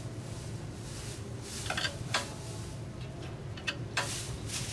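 A few short, sharp metallic clicks and clinks as a gloved hand works on the motor mount and belt drive of a rotary screw air compressor, over a steady low hum.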